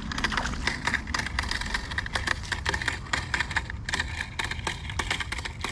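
A hooked fish splashing at the surface beside a kayak as it is brought in, heard as many short, irregular splashes and clicks over a steady low rumble.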